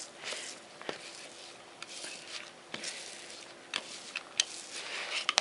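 Metal potato masher pressing and scraping through crumbly cottage cheese in a plastic bowl: soft squishing scrapes with a few light, irregular clicks.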